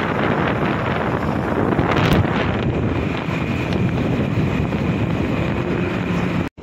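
Steady wind rushing over the microphone from a vehicle moving along a highway, with road and engine noise underneath. The sound drops out suddenly for a moment just before the end.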